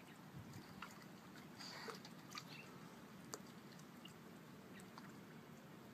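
Near silence: faint steady background noise with a few soft, scattered clicks.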